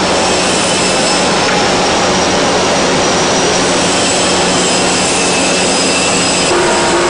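Automatic cartoning machine running: a loud, steady mechanical whir and hiss with a constant low hum.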